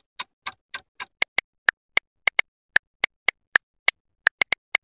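Clock-ticking sound effect: a run of sharp ticks, about three to four a second, which turn louder and brighter about a second in.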